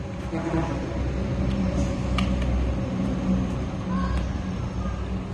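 Outdoor court ambience: a steady low rumble with faint distant voices of players, and one sharp smack about two seconds in, a volleyball being struck during the rally.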